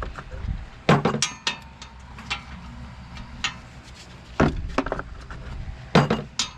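Metal hand tools clinking and knocking against the rear hub and suspension bolts as sockets are tried for size, with about nine sharp irregular clicks and knocks, the loudest about a second in and near the end.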